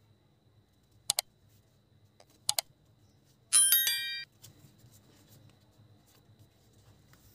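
Subscribe-button animation sound effect: two quick double mouse clicks about a second and a half apart, then a short, bright notification-bell chime about three and a half seconds in.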